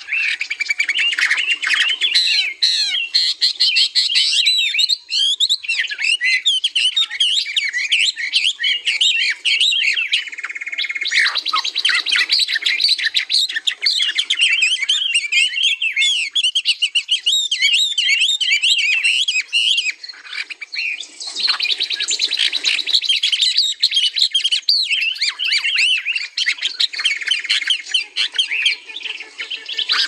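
Several songbirds chirping and singing at once in a dense, continuous chorus of overlapping quick warbles and chirps. There are brief lulls about ten and twenty seconds in.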